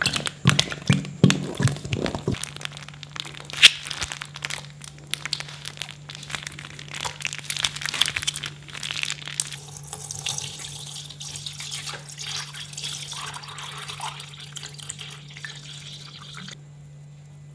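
Thick clear glue pouring and glopping into a plastic bowl with wet squelching clicks, then water pouring and splashing over slime in the bowl, a steady hiss that cuts off suddenly near the end.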